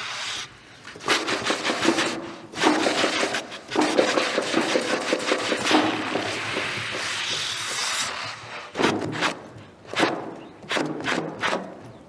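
Saxophones and percussion playing tight, percussive rhythmic patterns in sync: a dense run of short staccato strokes, then from about nine seconds in a series of separate sharp hits.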